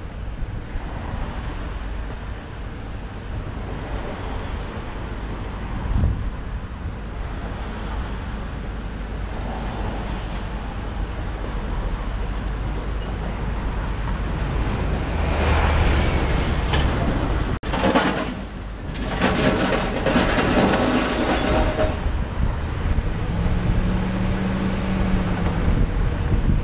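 Bus running along the road, heard from inside: a steady engine and road rumble that grows louder for several seconds past the middle, with a low engine tone rising and falling near the end.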